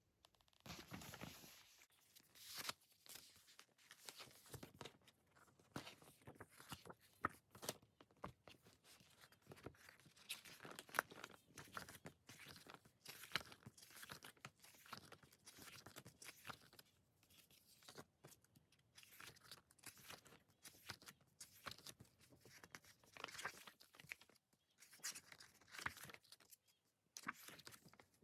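Faint, irregular crinkling, tearing and rustling of album packaging being unwrapped and handled, with plastic wrap and paper rustling in quick, uneven bursts.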